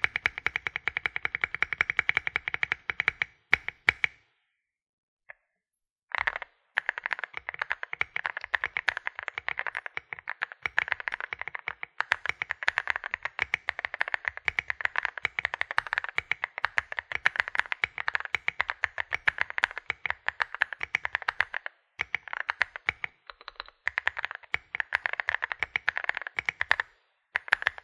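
Typing on a Meletrix Zoom75 mechanical keyboard with WS Morandi linear switches and SA profile keycaps: a very fast, even run of keystrokes for about four seconds, a two-second pause, then steady continuous typing with a brief break near the end.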